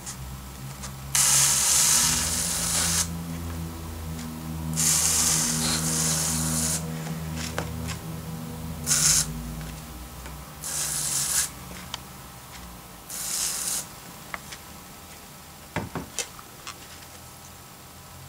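Hand-pump pressure sprayer misting water onto potting soil in plastic cups, in five separate sprays: the first two last about two seconds each and the last three are shorter. A few light clicks follow near the end.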